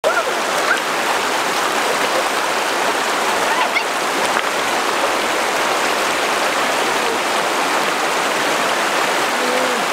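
Steady rushing of flowing river or stream water, with a few faint, brief chirps over it.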